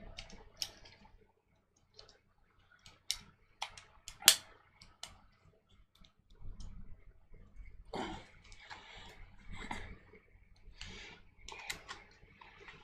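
Scattered sharp plastic-and-metal clicks of a pistol magazine being worked apart by hand, the loudest about four seconds in, followed by stretches of scraping in the second half as the base plate is pried at.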